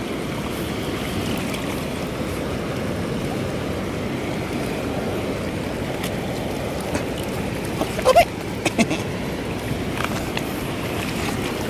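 Steady rush of a fast river flowing over stones, an even noise without a break, with a few short sharp sounds about eight seconds in.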